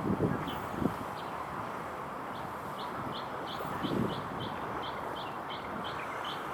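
A small bird repeating a short, high chirp about three times a second, starting a couple of seconds in, over a steady background hush.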